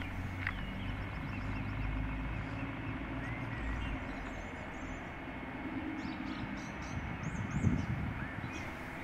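Outdoor park ambience: a steady low rumble of distant traffic with small birds chirping throughout, and a few low bumps near the end.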